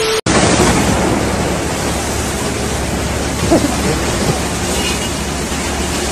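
Ryko Soft-Gloss Maxx 5 automatic car wash running: a steady, loud rush of water spray and spinning wash brushes. It opens with a split-second burst of TV-static glitch noise.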